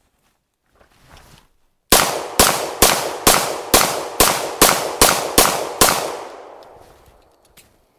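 About ten pistol shots from a Girsan Hi-Power clone, fired in quick succession a little over two a second. The echo dies away about a second after the last shot.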